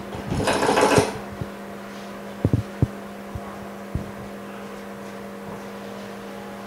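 A steady electrical hum from workshop equipment runs throughout. About half a second in, a brief crinkly rustle of handling is heard. It is followed by a few light taps on the bench as a cleaning cloth is worked over a phone's LCD panel.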